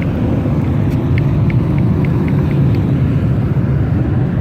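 Steady rumble of road traffic passing close by. Over it, about a second in, comes a short run of faint, high, evenly spaced ticks, about four a second, that fade out within two seconds.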